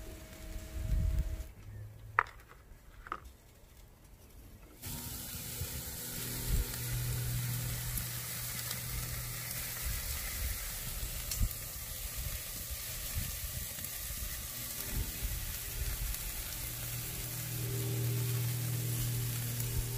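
Marinated steak sizzling on a grill: a steady hiss that starts suddenly about five seconds in and keeps going. Before it comes a quieter stretch with two sharp clicks.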